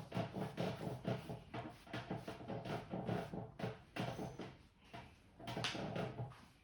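A barber's hands slapping and tapping in quick succession during a head massage, about four strikes a second, with a short pause about four and a half seconds in.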